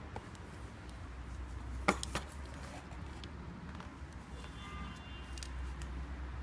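Two sharp clicks close together about two seconds in, from parts of an opened manual gearbox being handled, over a low steady hum.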